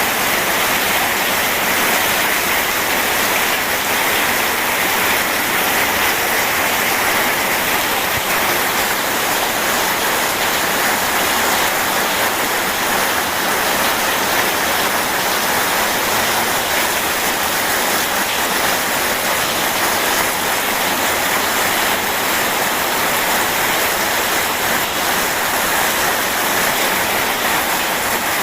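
Steady rain and rushing river water, an even unbroken wash of noise with no thunder.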